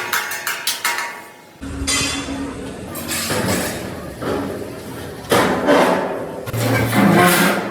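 Metalworking noise in a fabrication shop: a quick run of sharp metal knocks in the first second, then harsh noisy stretches over a low steady hum that start suddenly, once about a second and a half in and again about five seconds in.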